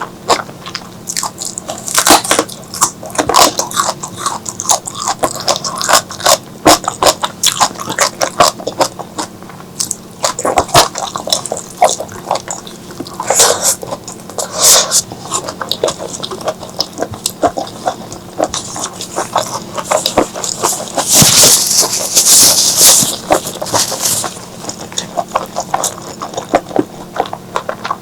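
Close-miked wet chewing and lip-smacking while eating spicy squid and okra curry, a rapid irregular stream of sticky clicks and squelches, with a longer hissing sound, like a slurp, about three-quarters of the way in.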